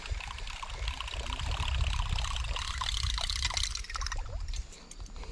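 Trickling, splashing water with a low rumble under it, easing off about four seconds in.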